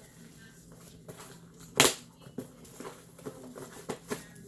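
Boxes and packaged items being handled and opened: scattered light knocks and taps, with one loud sharp knock a little under two seconds in.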